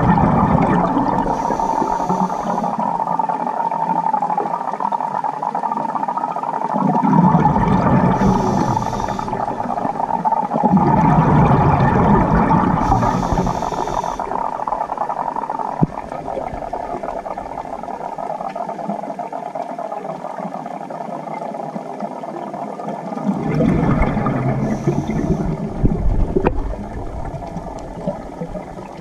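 Scuba regulator breathing picked up underwater: a short hiss on each inhale and a low bubbling rumble on each exhale, about four breaths with a long pause between the third and fourth. A steady hum runs underneath.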